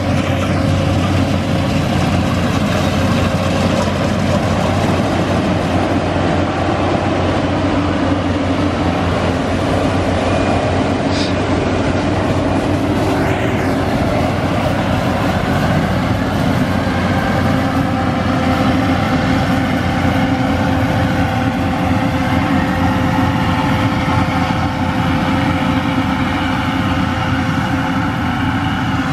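Yanmar 850 crawler combine harvester working a rice field: its engine and harvesting machinery run with a steady, unbroken drone.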